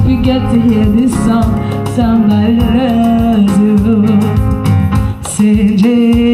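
Music: an electronic keyboard with bass and a steady beat, and a voice singing a wavering melody over it.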